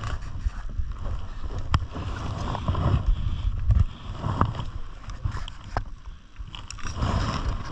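Rustling and handling noise on a body-worn camera as the wearer shifts behind cover, with wind buffeting the microphone and a few sharp clicks scattered through.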